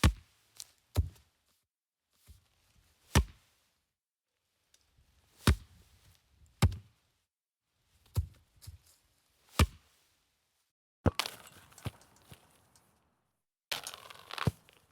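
Soccer ball being kicked: single sharp thuds, one every one to two seconds. From about eleven seconds in, longer bursts of noise lasting about a second come in among the kicks.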